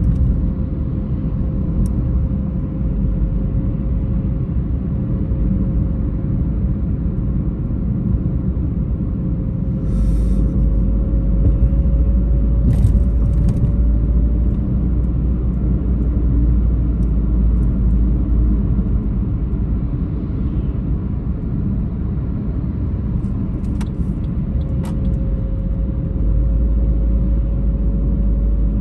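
Inside a moving car: steady low road rumble from the tyres and engine, with a faint hum that rises slightly in pitch. A few brief light clicks sound near the middle and again near the end.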